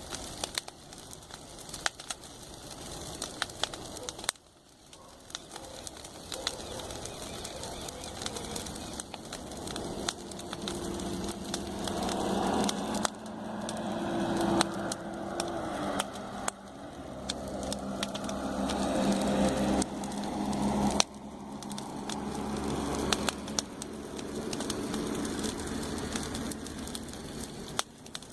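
Campfire crackling with frequent sharp pops of burning wood. Through the middle a low hum swells and then breaks off about 21 seconds in.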